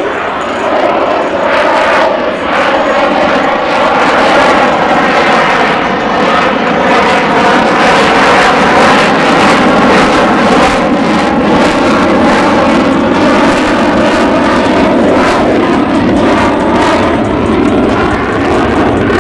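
Piston-engined propeller aircraft flying a low display pass, its engine running loud and steady. The engine note drops in pitch early on, holds, then rises again near the end as the aircraft passes and comes round.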